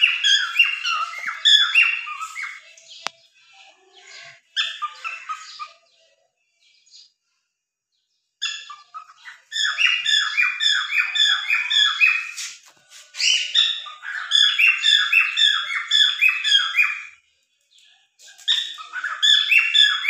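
Cockatiel singing: rapid strings of repeated chirping notes, several a second, in phrases a few seconds long. There is a pause of about two seconds before the longest phrase.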